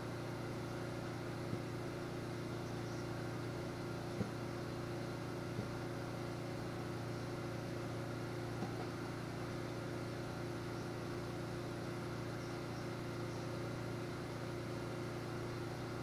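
A steady machine hum made of a low drone and a few constant tones, with four faint clicks in the first half.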